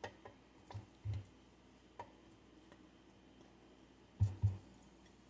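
Scattered light clicks and soft thumps of kitchen handling at a blender cup, with a pair of thumps near the end.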